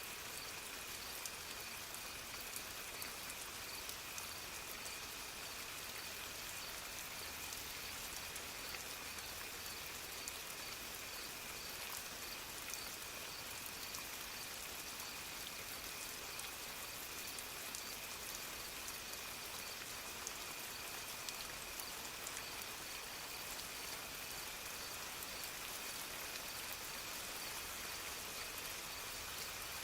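Steady soft rain, with many small drops ticking through an even hiss. Under it run a faint, steady high-pitched tone and a faint pulsing tone a little higher.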